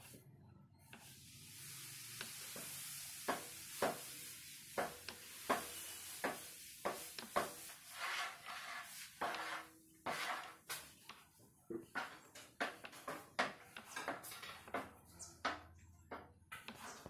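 Knife cutting through a slab of milk burfi, its blade knocking down onto the cutting board: a string of sharp, irregular taps, about one or two a second.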